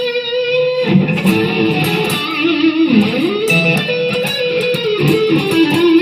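Electric guitar, a 2010 Epiphone Les Paul Standard on its rhythm (neck) humbucker, played through an amp. It plays sustained notes and melodic lines, with a pitch slide down and back up about three seconds in.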